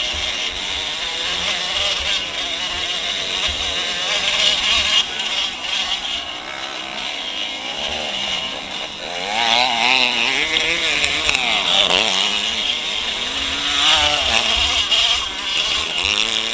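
Trail motorcycle engine running, revving up and down in two swells about two-thirds of the way through and near the end.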